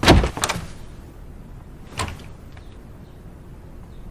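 Three heavy thuds, like knocks or a door banging: a loud one at the start, a second right after, and a weaker one about two seconds in.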